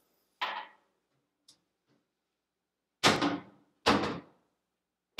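A few sharp knocks or thuds with a short ring after each. The two loudest come about a second apart in the middle, after a smaller one near the start.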